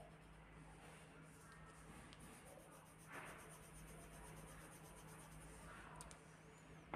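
Faint scratching of a pencil shading on paper, with a slightly louder stroke about three seconds in.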